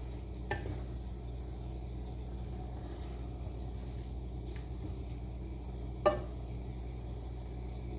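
Ground beef sizzling in a frying pan, a steady hiss, with a few short taps, the sharpest about six seconds in.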